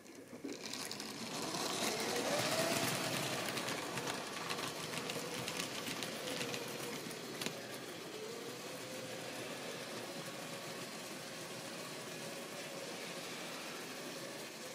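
Small electric motor of a model railway locomotive whirring as the train runs on sectional track, with the wheels clicking lightly over the rail joints. It starts with a click and builds over the first two seconds; its whine rises and falls once, then holds steady.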